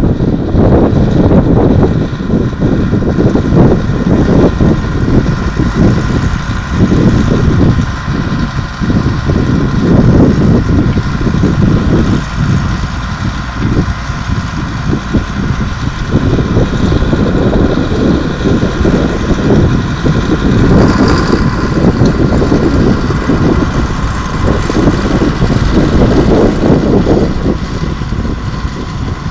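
Crawler tractor's diesel engine running steadily while pulling a plough, its low rumble rising and falling unevenly.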